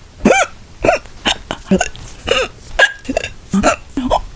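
A person hiccuping over and over in a rapid run, about two hiccups a second, each a short squeaky voiced hiccup that rises and falls in pitch.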